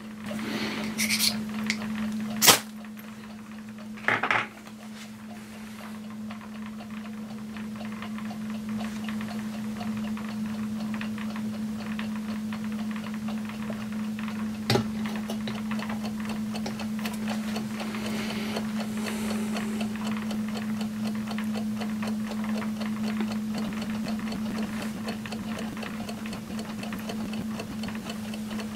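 A steady low hum, with a few sharp clicks and knocks in the first five seconds and a single knock about fifteen seconds in, as an alarm clock is set down on the stone slab.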